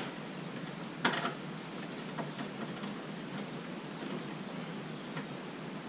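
A few scattered plastic clicks and knocks from hands working on the deck fittings of a Fury One sit-on-top fishing kayak, the loudest about a second in. A few short high-pitched peeps are heard as well.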